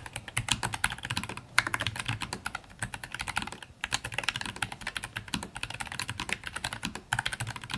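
Typing on a Keychron K5 Pro low-profile mechanical keyboard with brown Gateron low-profile switches: a rapid, continuous run of key clicks, broken by brief pauses three times.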